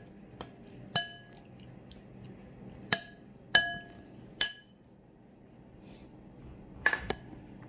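Metal spoon clinking against a glass mixing bowl while stirring a wet egg and minced beef mixture: about half a dozen sharp, ringing clinks at irregular intervals.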